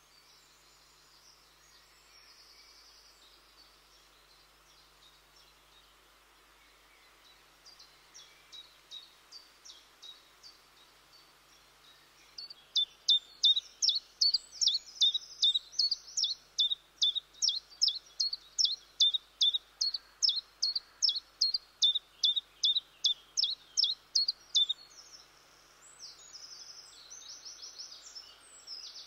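Common chiffchaff singing its song: a long run of short notes alternating between two pitches, 'chiff-chaff-chiff-chaff', about two and a half notes a second. The song starts faintly and becomes loud about twelve seconds in, then stops about twenty-five seconds in. Other small birds twitter faintly at the start and end.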